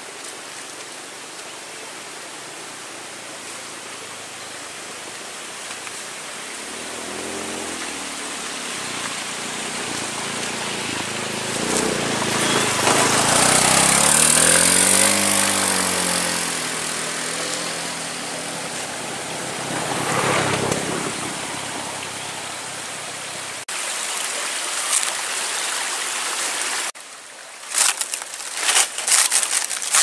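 Small motor scooter engines approaching and passing, their pitch rising and falling, loudest in the middle, over a steady hiss. Near the end come a few sharp crackles.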